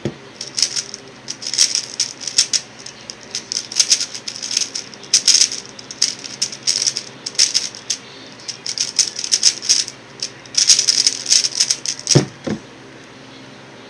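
X-Man Tornado V1 3x3 speedcube clicking and clattering in fast, uneven flurries as its layers are turned during a solve. It stops about twelve seconds in with two sharp knocks.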